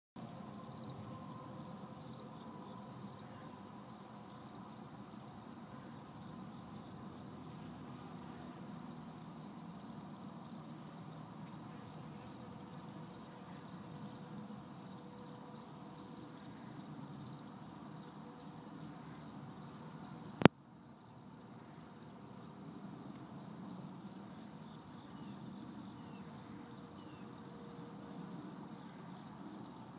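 Insects chirping in a steady, high-pitched, rapidly pulsing trill, with a low hum underneath. A single sharp click about two-thirds of the way through.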